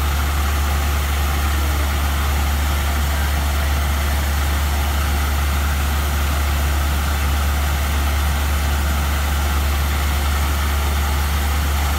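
New Holland 8070 combine harvester's diesel engine running steadily with a strong low hum, its unloading auger engaged and wheat pouring from the spout in a constant hiss over the engine.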